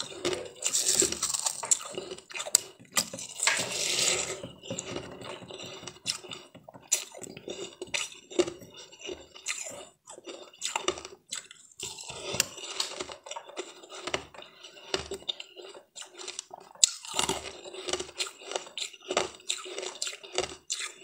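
Lump of ice being bitten and chewed, with irregular crunching and crackling throughout.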